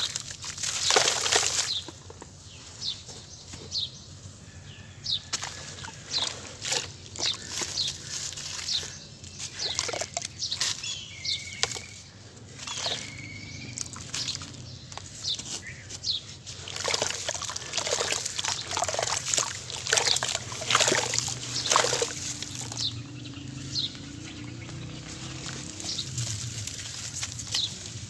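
Crumbly sand-cement chunks being crushed and squeezed by hand in water: irregular crunches and crackles with wet sloshing.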